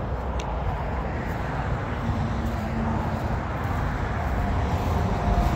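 Steady traffic noise from the New York State Thruway: a continuous, even road noise heaviest in the low range.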